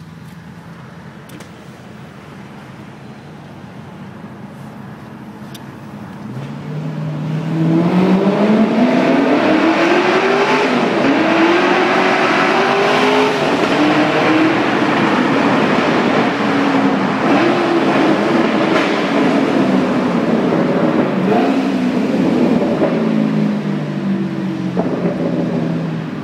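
Vauxhall VXR8's V8 through a Wortec cat-back exhaust in its loud setting, in a tunnel. It runs quietly at first, then about six seconds in it rises sharply in pitch and volume under hard acceleration and stays loud. It falls away near the end.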